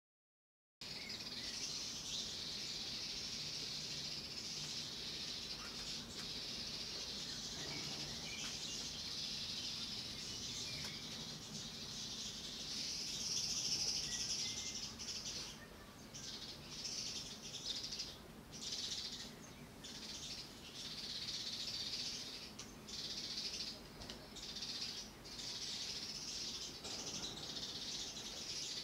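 Birds chirping in a dense, continuous chatter of high calls, breaking into shorter runs with brief pauses in the second half, over a faint low hum. It starts a moment in, after a short silence.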